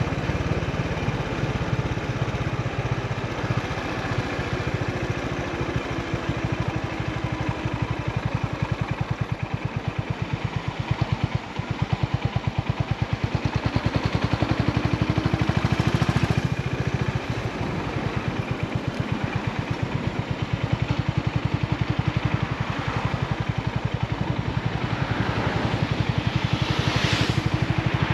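Honda GB350's air-cooled single-cylinder engine and exhaust running on the move, its separate firing pulses steady, easing briefly about eleven seconds in and then picking up again. A short rush of noise comes near the end.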